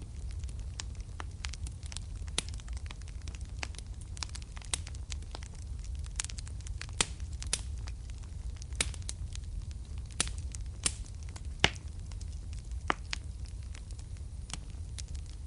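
Wood fire burning in a fireplace: irregular sharp crackles and pops over a steady low rumble of the flames, with a few louder snaps.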